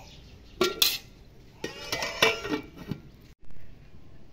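Steel cooking pots and bowls clanking together: a handful of sharp metallic knocks, some leaving a short ring.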